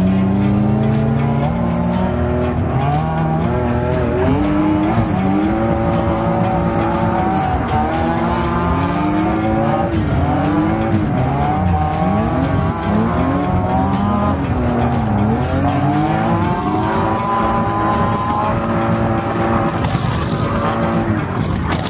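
Car engine revving hard while drifting, its pitch swinging up and down about once a second and holding steadier revs near the end, heard from inside the chase car's cabin.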